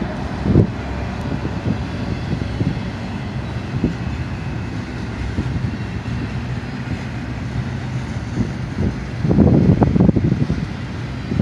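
An intermodal freight train rolling past with a steady low rumble and scattered knocks. Near the end, wind buffets the microphone loudly.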